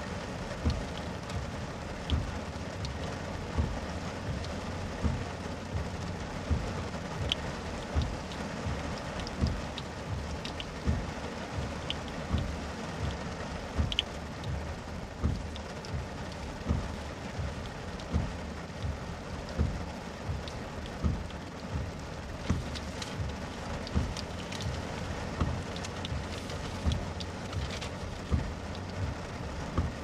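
Heavy rain on a car's windshield and roof, heard from inside the car: a steady hiss with frequent dull low thuds, about one a second.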